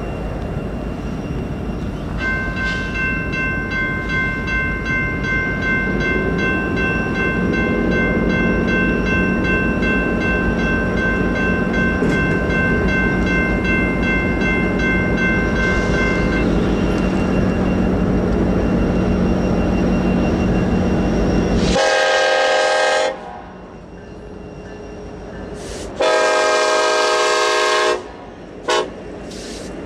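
Grade-crossing warning bell starts ringing about two seconds in as the crossing activates, while an approaching Norfolk Southern freight train's locomotives rumble closer. Near the end the lead locomotive's air horn sounds the grade-crossing signal: two long blasts and then a short one.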